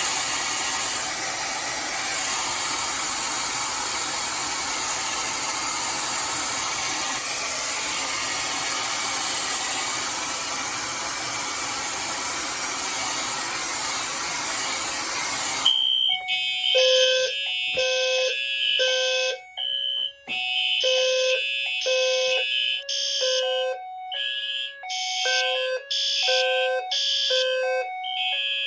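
Hair dryer blowing steadily at close range onto a heat detector. About 16 seconds in it stops, and the fire alarm goes off: the detector's B200SR sounder base sounds a high beep, joined by Wheelock and Simplex horns in an overlapping, pulsing on-off pattern.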